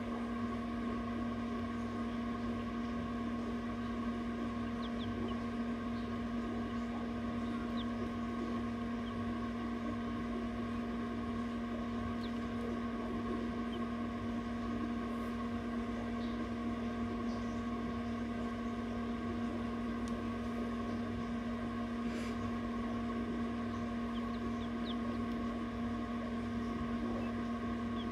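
Egg incubator running with a steady electrical hum. Faint, short high peeps of quail chicks come now and then.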